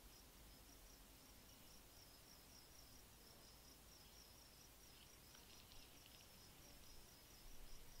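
Very faint insect chirping: a steady run of quick, high-pitched chirps, like a cricket's, over near silence.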